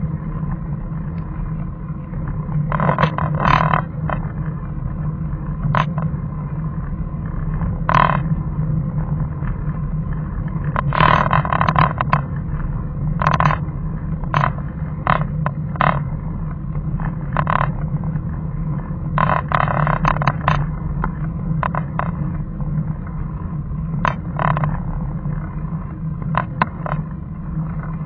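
A vehicle's engine running steadily as it climbs a winding road, heard through a dashcam microphone, with a low, even hum. Short clicks and rattles come at irregular intervals over it.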